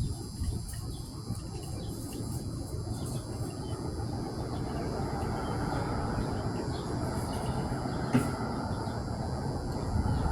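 A continuous low rumble with a rough shaking, knocking quality from an unseen outdoor source, swelling slightly through the middle, with one short sharp knock about eight seconds in.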